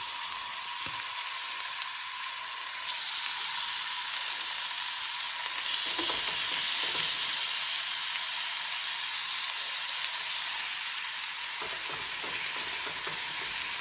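Raw chicken breasts sizzling in hot oil in a nonstick frying pan as pieces are laid in with tongs. The sizzle gets louder about three seconds in, with a few light clicks.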